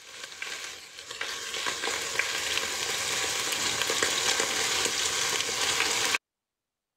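Skin-on chicken halves sizzling in butter and oil in a pot as they brown, a steady hiss with crackles and spits. It builds over the first couple of seconds and cuts off abruptly near the end.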